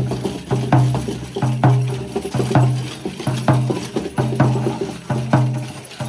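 A shaman's dhyangro frame drum beaten in a steady rhythm: a deep, ringing main stroke about once a second with lighter strokes between, while the brass bells on his costume jingle along.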